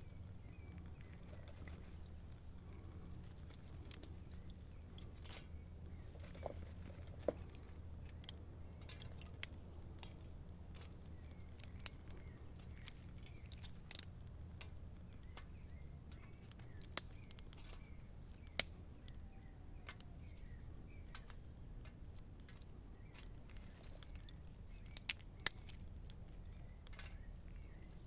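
Quiet forest ambience with a steady low rumble and faint, short bird chirps, twice higher near the end. It is broken by about a dozen scattered sharp clicks and knocks.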